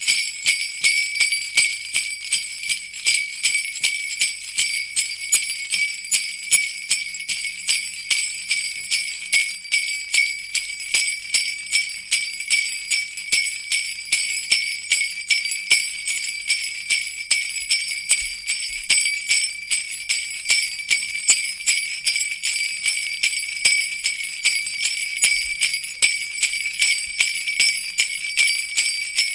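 Jingle bells shaken in a steady rhythm, a bright continuous jingling.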